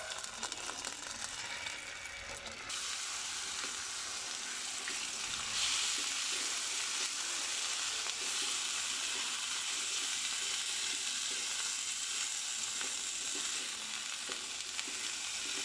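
Yogurt-marinated chicken mince frying in hot oil in a pan, sizzling steadily as it is stirred with a silicone spatula. The sizzle picks up about three seconds in, as the mince goes into the oil, and grows louder again a couple of seconds later.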